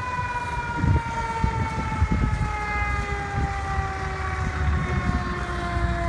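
Fire engine siren slowly winding down: one long tone whose pitch falls steadily, over low rumbling noise.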